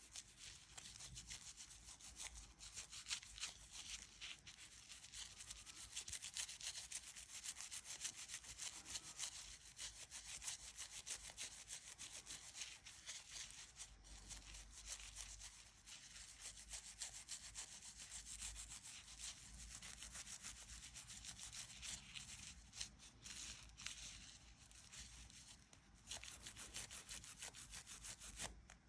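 Faint, continuous rapid rubbing strokes, an abrasive scrubbing by hand on the guitar during setup work.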